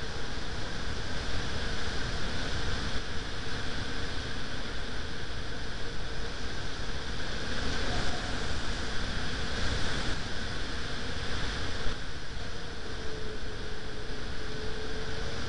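Wind buffeting the microphone: a steady rushing noise with rumbling at the low end. A faint steady hum sits underneath and bends slightly in pitch near the end.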